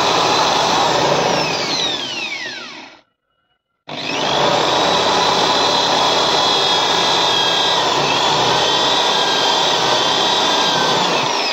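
Electric drill driving drywall (gypsum) screws through a subwoofer driver's metal frame into its wooden mounting board, fastening the speaker into the enclosure. The motor runs, winds down with a falling whine about three seconds in, stops briefly, then starts again about a second later and runs steadily, dipping briefly in pitch partway through.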